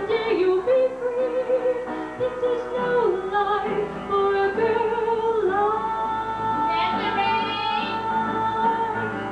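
Woman singing the closing line of a musical-theatre song into a microphone, finishing on one long held note that starts about halfway through.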